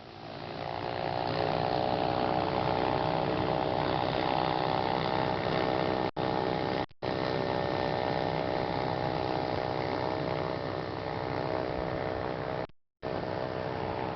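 Cessna light aircraft's piston engine running, climbing in loudness and pitch over the first second or two, then holding a steady drone. The sound cuts out completely for a moment twice around the middle and once near the end.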